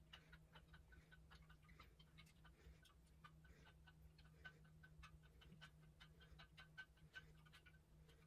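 Near silence: room tone with faint, irregular soft ticks, a few a second.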